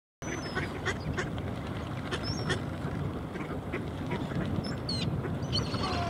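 Mallards quacking on open water: many short calls over a steady hiss, with a few thin, high calls among them.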